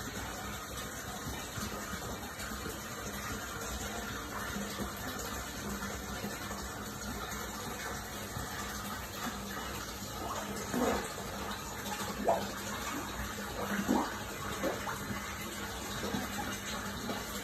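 Steady rushing and splashing of water from a koi pond's fountain, with a faint steady hum under it. From about ten seconds in, several short splashes break through as koi come up to the surface.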